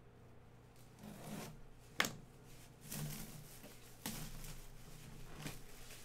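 Clear plastic shrink wrap crinkling and rustling as it is pulled off a cardboard box, in short scrapes about once a second, with a sharp snap about two seconds in.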